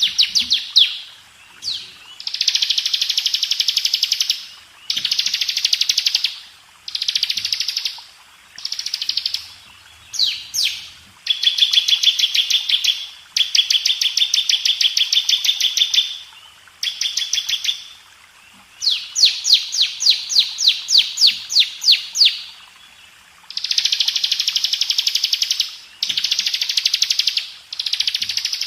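Bar-winged prinia (ciblek) singing in fast, buzzy trilled phrases one to three seconds long, separated by short pauses. About two-thirds through, a run of separate sharp notes comes at about four a second.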